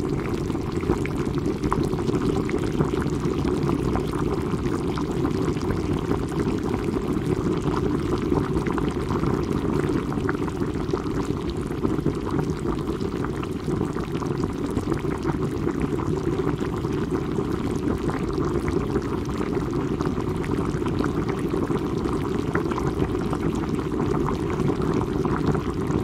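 Water boiling: a steady, dense bubbling with many small pops throughout.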